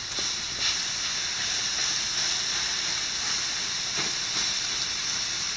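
Steady hissing sizzle of a vinegar, lemon juice and salt mix hitting hot chicken and the grates of a charcoal grill and flashing to steam.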